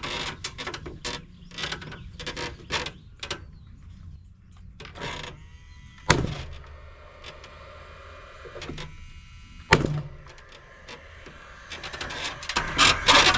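Hardware being handled and fastened while a truss bracket goes on: a run of irregular clicks and rattles, then two sharp knocks that ring briefly, about 6 and 10 seconds in, and more clicking near the end.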